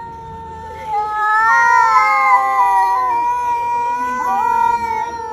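Two cats yowling at each other in a standoff: long, drawn-out, wavering yowls that overlap, swelling louder about a second in and easing off near the end.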